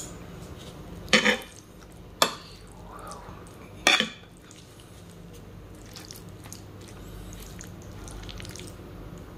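Metal fork and spoon clinking sharply against each other and the plate three times in the first four seconds while serving into a platter of chicken sisig, then only faint soft clicks.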